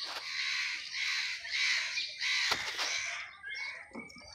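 Crows cawing: a run of about five harsh caws in the first three seconds, then fading.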